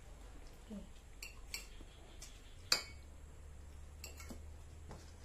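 Cutlery clinking and tapping against dishes: a handful of light, scattered clicks, the sharpest about two and a half seconds in.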